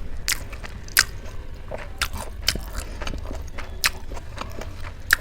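A person chewing food with open-mouth smacks: sharp wet clicks of the lips and tongue, about one a second.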